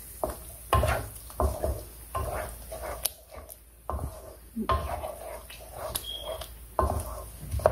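Wooden spatula stirring thick yogurt-laced stew in a nonstick karahi, with irregular scrapes and knocks against the pan.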